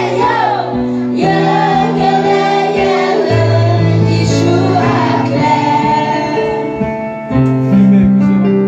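Young female voices singing a Christian worship song together through microphones and a PA system, over steady held backing notes.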